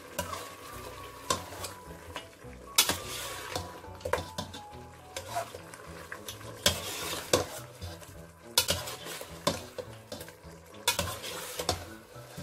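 Steel ladle stirring mutton and potatoes in a metal pot, scraping and clinking irregularly against the pot, over the sizzle of the masala cooking.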